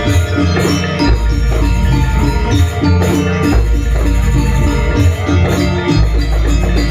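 Gamelan-style music for a janger dance: tuned metal percussion and drums playing to a steady quick pulse, over a recurring deep low note.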